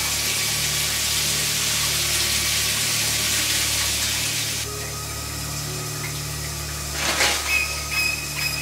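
Shower spray hissing steadily, cutting off abruptly about halfway. Near the end comes a sudden swish, then short, sharp, repeated high notes of music begin.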